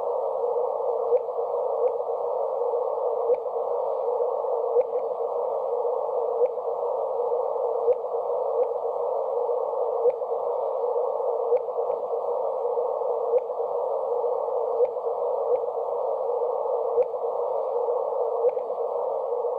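Radio static: a steady, narrow, muffled hiss with sharp clicks at irregular spacing about once a second. It is played as radio-telescope signals from colliding black holes, converted to sound.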